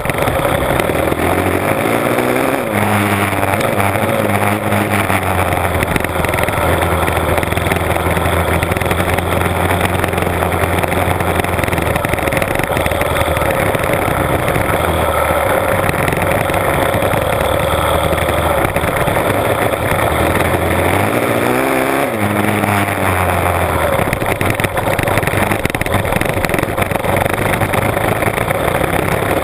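A Honda CRF450R dirt bike's single-cylinder four-stroke engine runs while riding. Its pitch sweeps up as the revs rise about two seconds in and again about twenty-one seconds in, then holds steady between.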